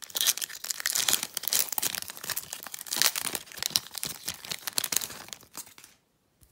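Trading-card pack wrapper crinkling and tearing as a pack is ripped open and its cards pulled out, a dense run of fast crackles close to the microphone that stops abruptly near the end.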